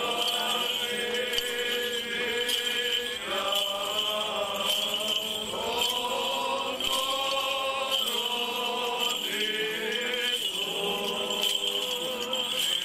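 Serbian Orthodox church chant sung by a group of voices walking in procession. The notes are long and held, moving to a new pitch every couple of seconds.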